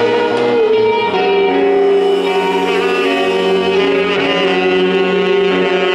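Live band music: a saxophone plays long held notes over electric guitars.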